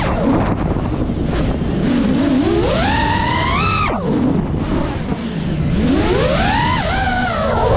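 Five-inch FPV quadcopter (Geprc Mark5) motors and propellers whining, the pitch rising and falling with the throttle. It climbs over a couple of seconds, drops abruptly about four seconds in, then climbs again and falls near the end.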